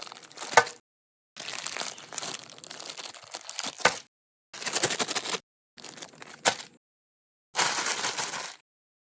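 Crunching and crinkling from a meat grinder crushing soft candy, heard in five short cut-together snippets separated by silences. Several snippets end in a sharp crack.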